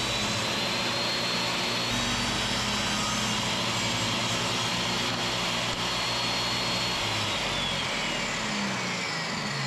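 Table saw running as a mahogany bracket is fed through it to cut a dado, with a steady motor whine. Over the last few seconds the whine falls in pitch as the saw is switched off and winds down.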